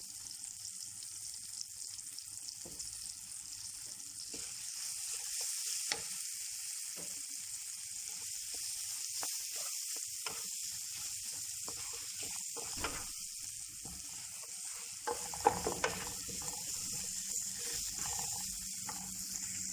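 Onions and tomatoes with spices sizzling as they fry in a pan, with scattered clicks and scrapes of a stirring utensil against the pan. A few sharper knocks come about three-quarters of the way through.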